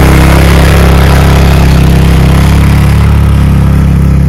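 Quad bike (ATV) engine running at a steady speed.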